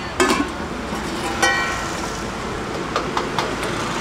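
Stainless steel plates and bowls clinking as they are handled and served onto: a few sharp clinks, one ringing briefly about a second and a half in. Steady street traffic noise runs underneath.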